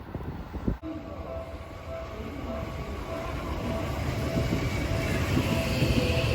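Japanese level-crossing bell ringing in steady repeated dings while a Seibu Line electric train approaches, its rumble growing louder. A rising high whine from the train comes in toward the end.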